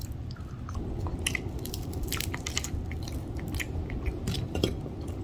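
Close-miked eating of crispy fried food: chewing and biting, with scattered sharp crackles of crunchy batter and wet mouth clicks.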